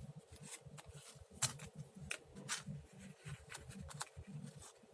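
Paper being handled on a craft table: light rustling with scattered small clicks and taps.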